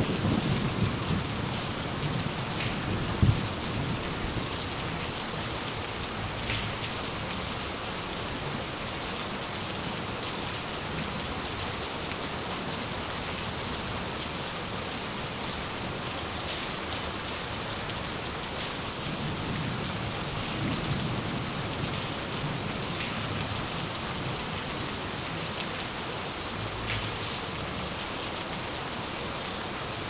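Steady rain hissing, with rolling thunder: a low rumble dying away over the first few seconds, a sharp crack about three seconds in, and another soft rumble about two-thirds of the way through.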